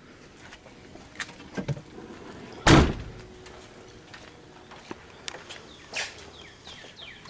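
A car door on a Nissan S13 shut with a single heavy thud about three seconds in, among lighter clicks and knocks of handling. A few short chirps start near the end.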